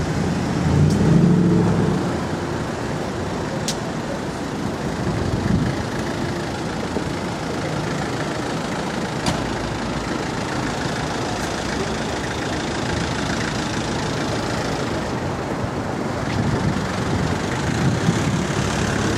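Street traffic: a steady rumble of motor vehicle engines, with louder swells as vehicles pass about a second in, around five seconds in, and again near the end.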